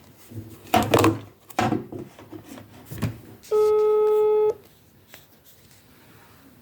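A Maxcom phone sounds a single steady call tone lasting about a second, part of a tone that repeats every five seconds. A few clicks and knocks from handling the phone come before it.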